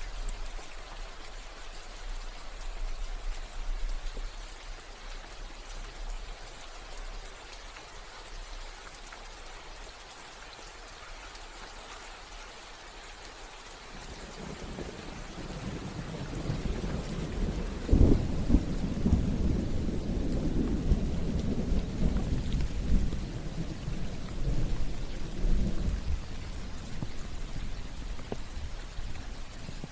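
Steady rain falling. About halfway through, thunder rumbles in low, cracks sharply once, and rolls on for several seconds before fading back under the rain.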